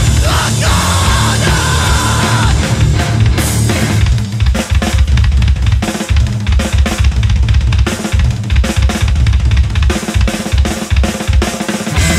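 Metalcore song recording: a drum-heavy passage of kick drum, snare and cymbal hits over low bass, with the full band sound coming back in near the end.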